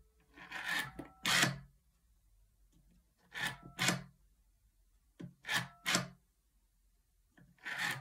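Rotary dial of a ProTelX GPO 746 reproduction telephone dialled four times: each time it rasps as it is wound round to the finger stop and again as it spins back, with a short tone beep in between as a tone-dialling signal is sent for the digit.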